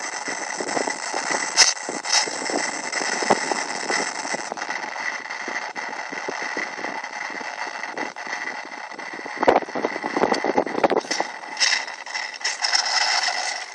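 Electric motor and propeller of a foam RC plane running steadily with a thin whine, mixed with rushing noise that swells in gusts about two-thirds of the way through.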